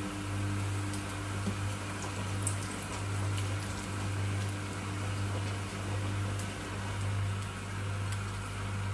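Breaded parmesan chicken frying in hot oil in a wok: steady sizzling with scattered small pops and crackles, over a steady low hum.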